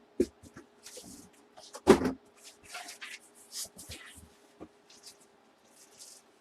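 Hands handling packaging and items: short crinkly rustles and light clicks, with one heavier thump about two seconds in.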